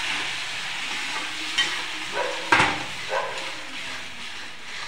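Potato and tomato masala sizzling in a kadhai as a perforated metal spoon stirs and scrapes through it. The sizzle fades gradually, with a few sharp knocks of the spoon against the pan, the loudest about halfway through.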